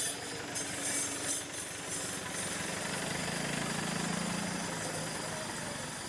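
A motor vehicle engine idling with a steady low throb. A humming tone swells about three seconds in and fades near the end.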